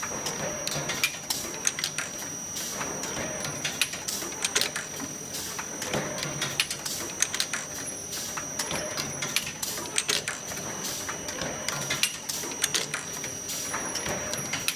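Automatic waffle sugar cone baking machine running: its mechanism gives a dense, irregular clatter of sharp clicks and clacks over a steady high-pitched whine.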